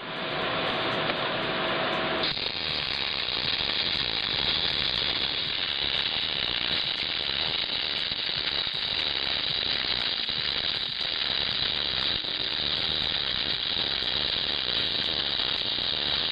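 Electric arc welding: the arc crackles and hisses steadily along the joint, settling about two seconds in.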